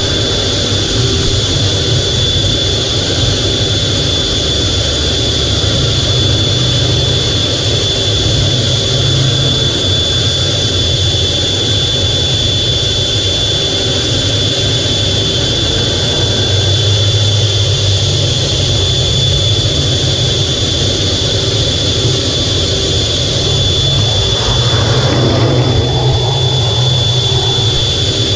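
Twin jet engines of an F/A-18 heard from inside the cockpit, running steadily: a low rumble and hiss with a constant high whine over it.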